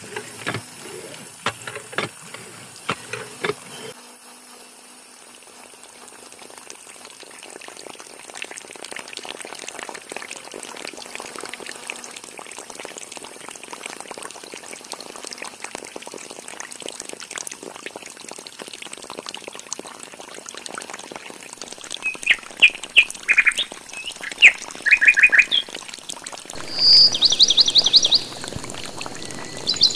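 A few light clicks and knocks from a homemade syringe hand pump being worked. Then water from two small pipes of a miniature water pump trickles steadily into shallow water. Birds chirp over it near the end, including a loud rapid trill.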